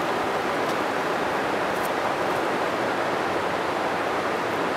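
Steady rush of flowing river water, an even hiss with no change in level.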